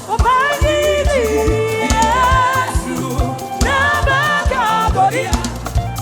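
Live gospel praise music: several voices singing together over a band with bass and drums keeping a steady beat.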